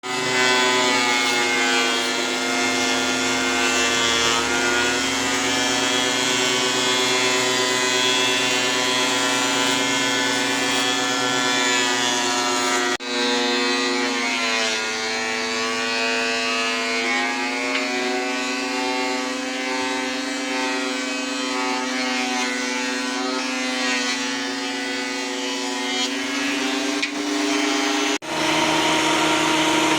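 Makita 2012NB 12-inch benchtop thickness planer running with a steady high motor whine, the pitch sagging for a few seconds as the cutterhead takes load from a board passing through. The sound breaks off abruptly twice.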